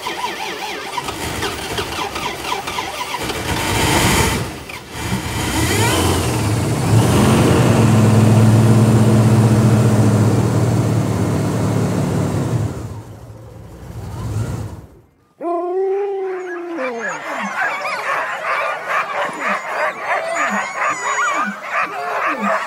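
A vehicle engine runs loudly for about fifteen seconds, with a steady low hum through the middle, then cuts off suddenly. Sled dogs in harness follow, howling and yipping: one long falling howl, then a run of short yips.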